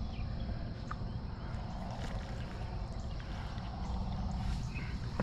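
Steady low rumble of wind on the microphone, with a few faint ticks.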